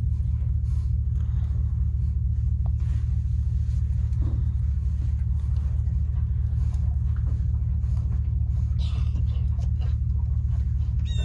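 Steady low rumble of an idling vehicle engine, with a few faint knocks of horses shifting inside a metal stock trailer.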